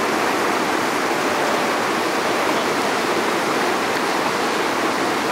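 Whitewater rapid rushing, a steady dense hiss of churning river water with no pauses.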